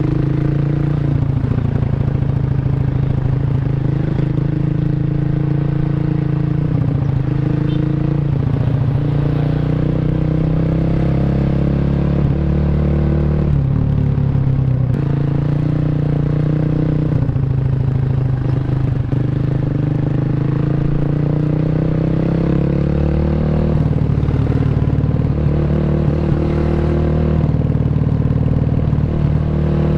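Honda Revo motorcycle's single-cylinder four-stroke engine, bored up to 150cc, running through a CLD C7 aftermarket exhaust while riding. The engine pitch rises and falls with throttle and gear changes, dropping sharply a few times.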